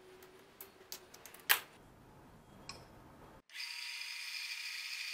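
Faint clicks of a knife blade and plastic handle scales being handled, with one sharp click about one and a half seconds in. From about three and a half seconds in, a bench belt sander runs with a steady high hiss and whine.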